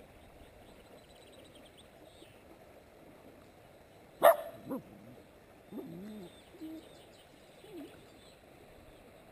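A dog barks once, sharply, about four seconds in, then gives a few short whines that bend up and down in pitch. Under it runs the faint steady rush of a shallow stream.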